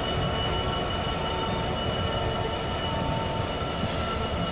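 Class 66 diesel-electric locomotive passing slowly at close range: a steady heavy rumble with a steady high-pitched whine over it.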